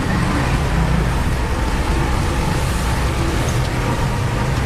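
Heavy construction machine's engine running steadily at a constant pace, deep and even.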